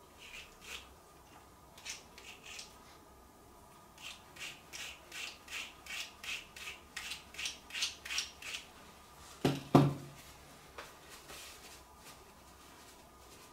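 A brush being drawn through a bichon frise's coat: a few separate strokes, then a quick even run of strokes about three a second. A single loud thump follows near the ten-second mark.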